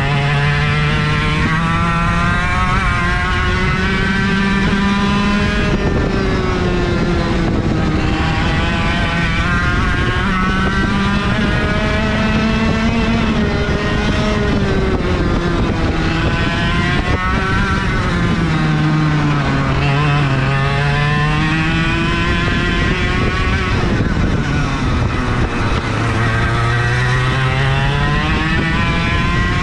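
IAME KA100 100cc two-stroke kart engine at full throttle, its pitch climbing steadily along each straight and dropping as it slows for the corners, about four times over.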